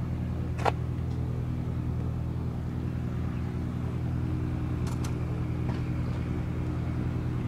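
Grob G115E trainer's four-cylinder Lycoming piston engine and propeller running steadily as the plane flies just above a grass airfield, with a sharp click about a second in.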